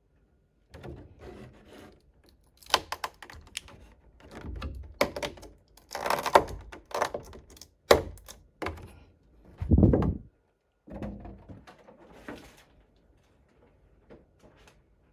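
Hands handling a plastic toy figure and its packaging: irregular clicks, knocks and rustling, with a heavier thump about ten seconds in.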